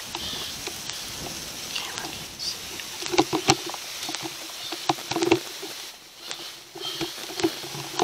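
Irregular rustling and crunching of dry leaves and brush, with a loud cluster of crackles about three seconds in and again about five seconds in.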